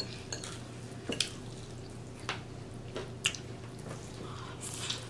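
Close-up eating sounds: a handful of short, sharp wet clicks and smacks from a fork on the plate and from the mouth as she eats greens and gravy-covered food, over a faint steady hum.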